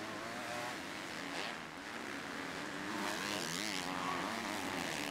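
Several MX2 motocross bikes' 250cc four-stroke engines racing on track. Their pitches overlap and rise and fall as riders throttle on and off through the corners.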